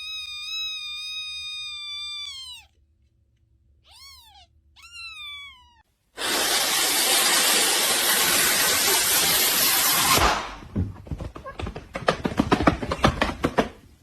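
A cat meowing: one long, high meow that falls in pitch at its end, then two short meows. Then a loud, even hissing noise for about four seconds that cuts off suddenly, followed by a rapid run of irregular clicks and taps.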